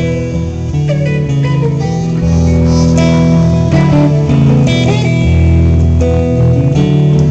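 Small live band playing an instrumental passage: electric guitar and acoustic guitar with harmonica, held notes with some bent pitches.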